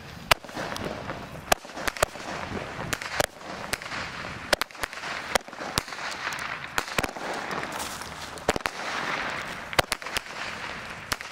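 Fireworks going off: a long string of sharp cracks and pops at uneven intervals, over a continuous hiss of burning sparks.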